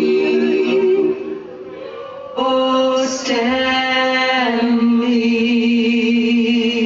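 A singer holding long sustained notes over a backing track, with a quieter dip about a second in before the next long note.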